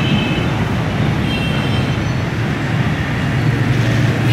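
Steady low rumble of a freight train, its wagons rolling along the track, with a faint brief high squeal about a second and a half in.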